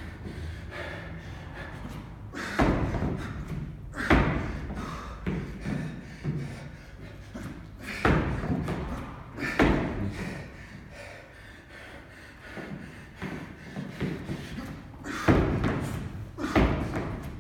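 Heavy thumps of feet landing on a wooden plyo box between jumping pull-ups, six in all, in three pairs about a second and a half apart.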